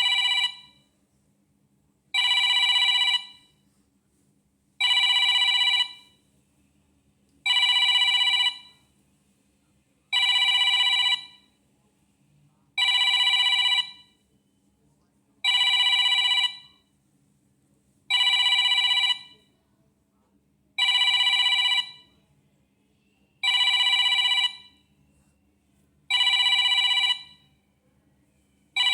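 Samsung Galaxy F42 5G phone ringing with an incoming call. It sounds an electronic bell-like ringtone: rings of steady high tones, each about a second long, repeating about every two and a half seconds.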